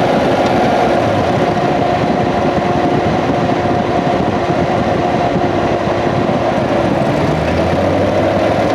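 2016 Corvette C7's 6.2-litre LT1 V8 running steadily, heard from inside the engine bay. The engine is under investigation for a mystery noise that the owner suspects comes from the fuel pump or fuel line, the belt tensioner having already been replaced.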